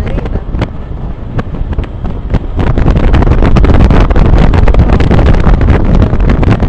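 Wind buffeting the microphone over the rumble of skateboard wheels rolling downhill on asphalt, with many sharp clicks and clacks. It gets louder about two and a half seconds in.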